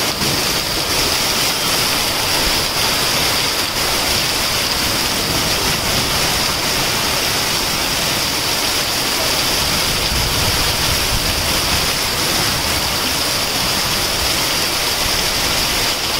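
Heavy rain pouring down onto a street, an even, steady hiss of a dense downpour.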